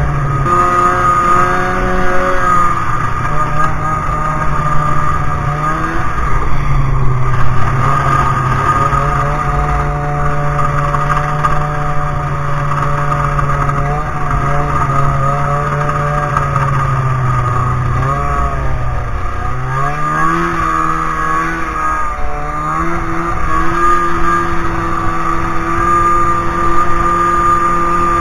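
Snowmobile engine running under way, its pitch rising and falling with the throttle; it drops off about two-thirds of the way through, then picks back up.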